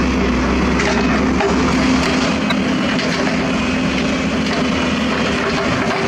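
Heavy diesel earthmoving machinery running steadily: a Hyundai tracked excavator working beside a dump truck, with a steady engine tone over a wide mechanical din. A deep low rumble drops away about one and a half seconds in.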